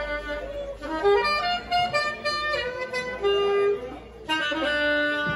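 Alto saxophone playing a jazz solo line of held and moving notes over the band, with a short break about four seconds in.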